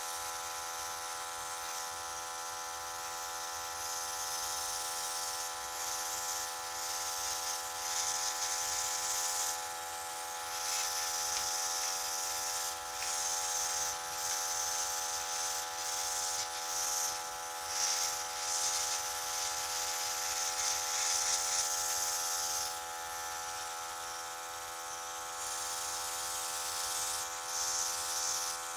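Airbrush spraying thinned paint in repeated hissing spurts that start and stop every few seconds, over the steady hum of its small air compressor.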